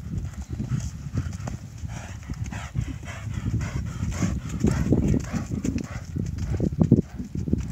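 Hoofbeats of a grey barrel-racing gelding cantering on soft arena dirt, loudest as the horse passes close about halfway through.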